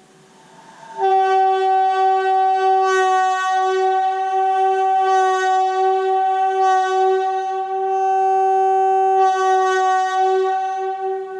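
Leslie S-2D air horn blowing one long, steady, loud blast that starts about a second in, with a brief higher note as it comes on, and fades near the end. It is an attempt at the 'wee honk' horn signal of Philippine National Railways locomotive 917.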